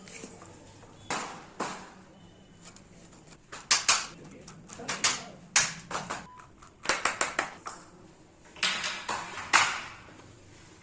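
Irregular sharp taps and knocks of hand work on wood, with a quick run of several taps a little past the middle and a few short scraping sounds near the end.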